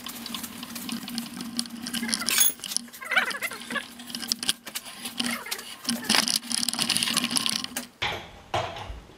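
Hand pallet jack loaded with a small NGF milling machine rolling across a concrete floor: a steady low hum from the wheels with irregular rattling clicks and knocks from the jack and machine, and a few squeaks about three seconds in. It stops about eight seconds in.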